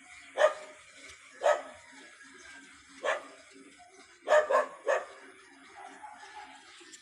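A dog barking: six short barks at irregular intervals, three of them in quick succession a little past the middle.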